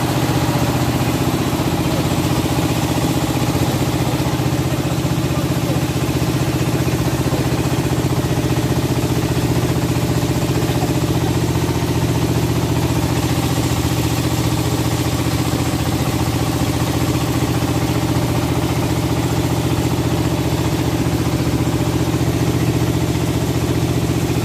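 Engine of a wooden motorboat running steadily under way, its even drone unchanged throughout, over a constant rush of water splashing along the hull.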